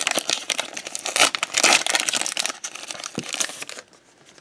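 Foil wrapper of a Pokémon TCG booster pack crinkling and crackling as it is opened by hand; the crinkling stops about four seconds in.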